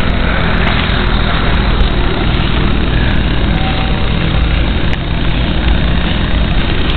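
6-inch FPV quadcopter's brushless motors and propellers buzzing loudly and steadily as it flies close by.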